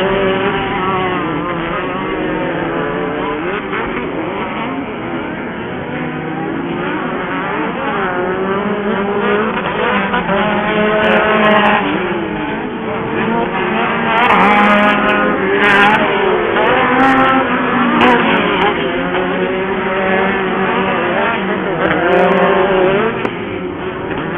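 Several off-road racing buggies' engines running hard on track, their overlapping tones repeatedly rising and falling as the drivers accelerate, lift and shift, with a few sharp clacks near the middle.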